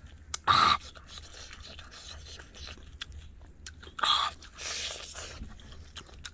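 A person chewing and biting grilled meat with wet mouth clicks throughout. Two short, loud, breathy mouth noises come about half a second and four seconds in, the second followed by a softer breathy exhale.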